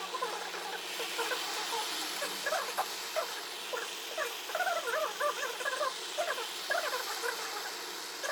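Many short, overlapping animal squeaks and chirps, continuous and busy.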